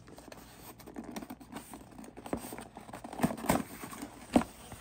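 Cardboard mailer box being handled and its lid pried open: scattered taps, knocks and scrapes of cardboard, busier about three seconds in, with one sharp snap near the end.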